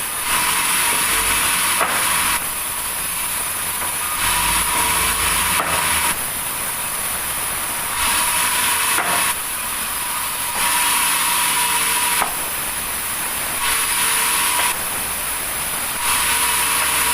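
Sawmill saw cutting through wood: a harsh, high hissing noise that swells in bursts of one to two seconds, roughly every two to three seconds.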